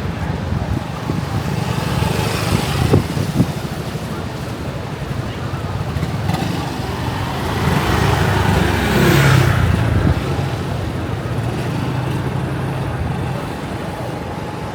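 Road traffic: a steady engine rumble, with a motor vehicle passing close and loud a little past halfway, then fading.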